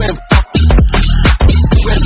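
Loud electronic background music with a heavy bass beat and sharp drum hits.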